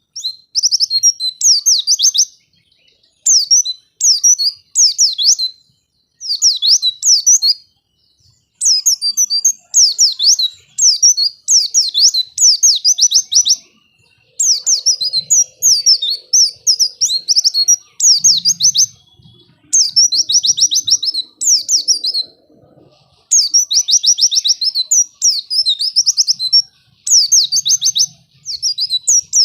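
White-eye (pleci) singing: rapid runs of high, sweeping chirps, phrase after phrase with short pauses between them.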